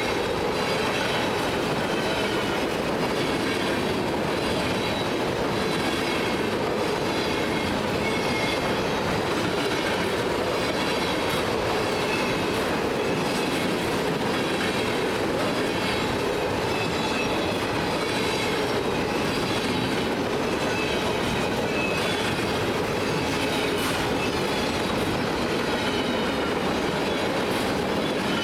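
Freight train of flatcars loaded with trash containers rolling steadily past: steel wheels rumbling on the rails with faint clicks over the rail joints, and a wavering high squeal from the wheels.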